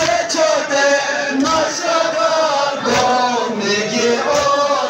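Men's voices chanting a Balti noha, a Shia mourning lament, with the mourners' chest-beating (matam) landing in time as heavy thumps about every second and a half.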